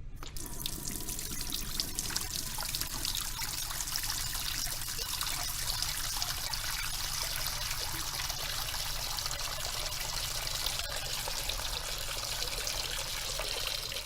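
Water running from a tap in a steady stream, splashing and trickling into a sink; it starts abruptly at the beginning and stops abruptly at the end.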